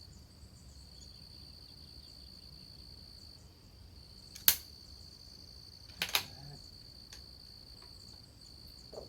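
A single .22 LR rifle shot from a Christensen Arms Ranger, a sharp crack about halfway through, followed a second and a half later by two quick clacks of the bolt being worked. Insects chirr steadily at a high pitch underneath.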